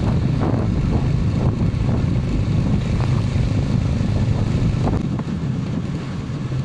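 Motorcycle engine running as the bike rides along, a steady low hum that quietens a little about five seconds in.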